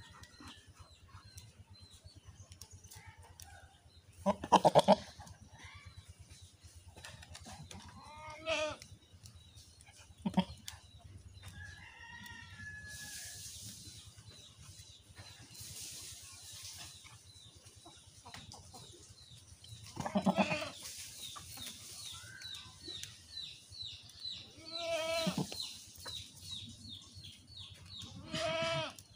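Goats bleating, about six separate calls with a wavering pitch, the loudest about five seconds in and about twenty seconds in.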